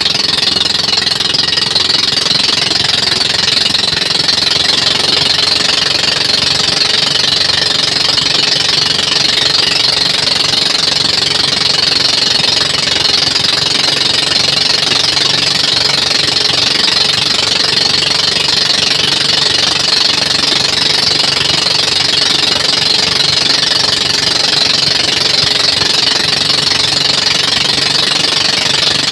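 Engine of a motorized bangka outrigger boat running steadily under way, a constant rapid chugging drone with a steady high hiss over it.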